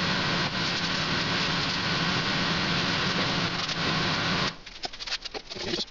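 Extraction fan running with a steady rushing noise and a low hum. It stops abruptly about three quarters of the way through, leaving a few light knocks and taps.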